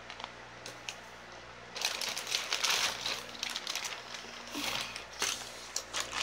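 Crinkling and rustling from close handling, in two spells, with a few light clicks.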